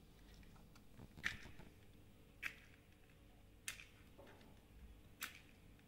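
Four faint, short scratchy strikes about a second apart: a match being struck against the side of a matchbox again and again without catching.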